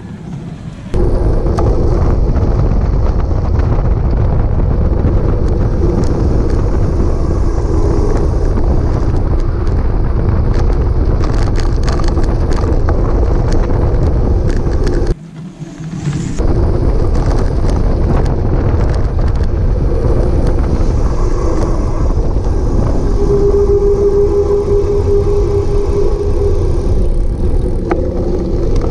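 Wind buffeting a bike-mounted action camera's microphone, with tyre and road rumble, as a pedalled cargo bike rolls along a paved road. It starts suddenly about a second in, drops out briefly about halfway, and a steady hum sounds for a couple of seconds near the end.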